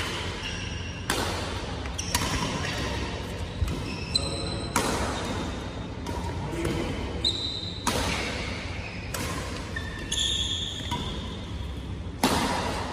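Badminton rally: rackets striking a shuttlecock back and forth, a sharp hit roughly once a second, in a large hall.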